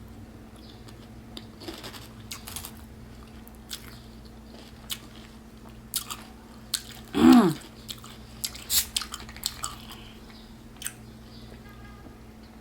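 Crunchy chewing and biting of fried mozzarella onion rings coated in crushed Flamin' Hot Cheetos, with scattered sharp crunches. About seven seconds in, a short, loud vocal sound falls in pitch.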